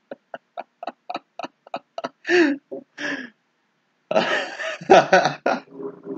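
A man laughing: a quick run of short, even laughs, about three or four a second, then a few longer laughs and a louder, breathier outburst about four seconds in. A low steady hum comes in near the end.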